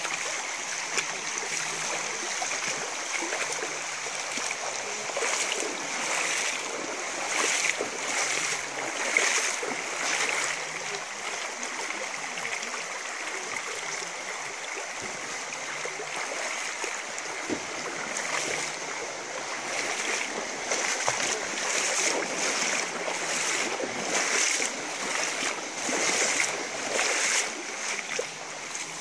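Running water with a steady insect chorus, the sound swelling and easing every second or two.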